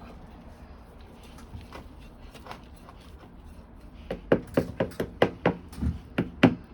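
A quick run of sharp knocks on a plant pot, about four a second, starting about four seconds in, as dry potting soil and the pot are worked during repotting.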